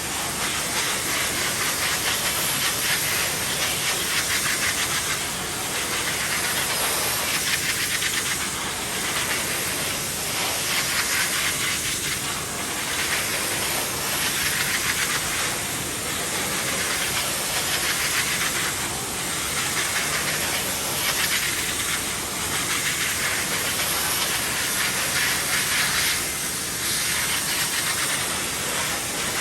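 Sanitech Mark 4 cleaning machine jetting a continuous hissing stream of steam onto a fryer mould, rising and easing every second or two.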